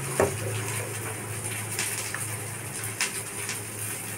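Faint sizzle of onions and green chillies frying in a pan, with a few short clicks and taps as a spice jar is opened and a spoon is handled, over a low steady hum.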